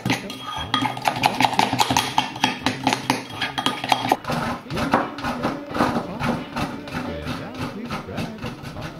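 Metal spoon clinking and scraping rapidly against a ceramic mixing bowl while beating margarine and sugar into mock cream, with background music underneath.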